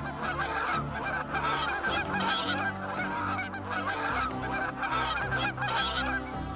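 A large flock of white domestic waterfowl calling over one another, a dense, continuous chatter of overlapping calls, with soft background music underneath.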